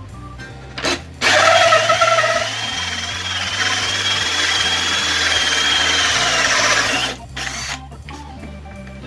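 A power drill running steadily for about six seconds, with a high whine, starting about a second in and stopping near the end, over background music.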